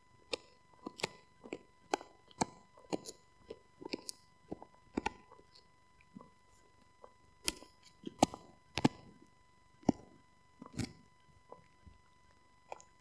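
Husky gnawing on a rawhide-style chew bone: irregular crunching cracks and clicks of teeth on the hard chew, about one or two a second, thinning out near the end.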